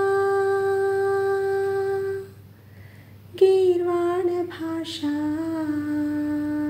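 A woman singing a Sanskrit song solo, with no accompaniment. She holds a long note that stops about two seconds in, pauses briefly for breath, then starts a new phrase that steps down in pitch and settles on a lower held note.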